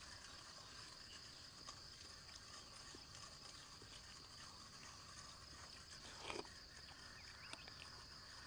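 Faint open-air ambience: a steady high insect drone, like crickets, with a brief louder sound about six seconds in.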